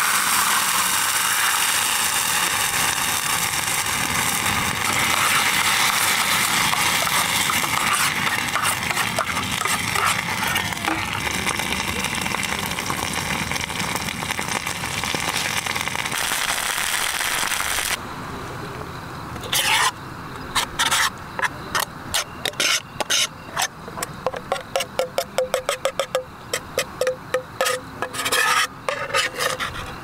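Bolognese sauce sizzling in a small metal camping pot over a gas camp stove, a steady hiss. About eighteen seconds in it gives way to a metal spoon scraping and tapping sauce out of the pot in quick, repeated clinks.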